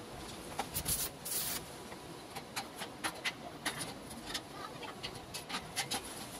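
Irregular light clinks and scrapes of steel tubing being handled and fitted into a welded steel frame, with a steady low workshop background.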